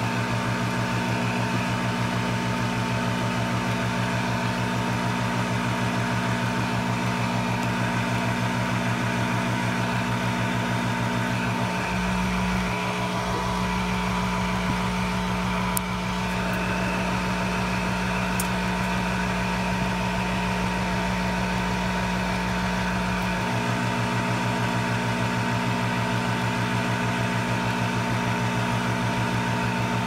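Hot air rework station blowing over a RAM module on a board preheater, desoldering its memory chips: a steady blower hiss with an electrical hum and a steady whine. The low hum shifts about twelve seconds in and shifts back a little after twenty-three seconds, with a couple of faint ticks in between.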